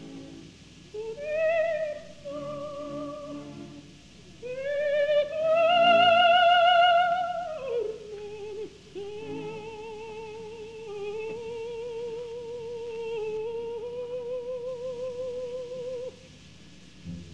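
Soprano voice singing with a wide, regular vibrato over a soft orchestra, in a 1952 live opera recording. A short phrase leads to a loud high note held about five seconds in, which drops down into a long, softer sustained line that stops about a second before the end.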